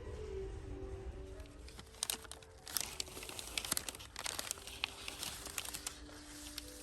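Dried flowers and stems crinkling and crackling as they are handled and worked into a wreath. The crackling starts about two seconds in and goes on until near the end, over soft background music with held notes.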